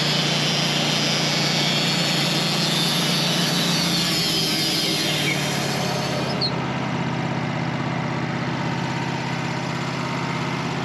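Band sawmill running as its blade cuts through a honey locust log, a steady machine drone with a high hissing of the cut. About six seconds in the high hissing stops as the blade leaves the cut, while the lower drone carries on until near the end.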